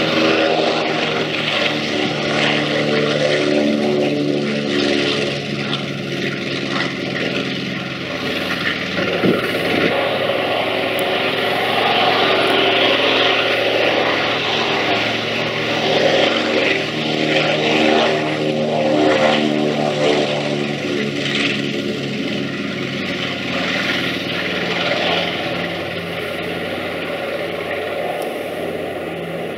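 A B-25 Mitchell bomber's twin Wright R-2600 radial engines and propellers at high power on the takeoff roll and liftoff. The drone is steady and made of many stacked tones.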